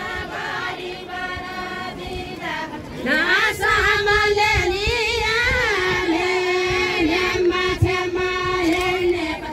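Women singing a Deuda folk song: softer singing for the first three seconds, then a louder woman's voice comes in and holds one long, wavering line almost to the end.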